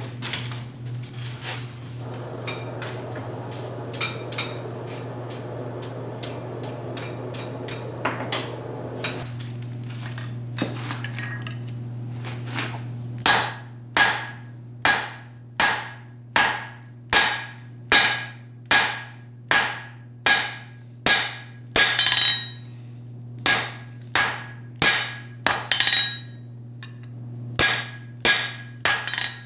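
Blacksmith's hand hammer striking a glowing steel tong blank on the anvil: after some light clinks and a low steady hum, regular blows start about halfway in, roughly one every three-quarters of a second. Each blow leaves a bright metallic ring.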